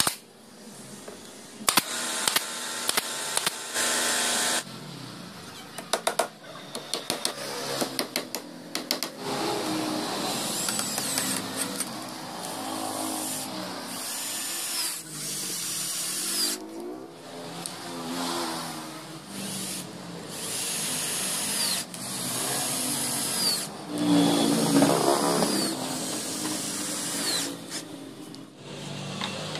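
Cordless drill driving screws through a plywood fence into the base board, in several runs of a few seconds each, the motor whine dropping away as each screw seats. A burst of sharp clicks in the first few seconds.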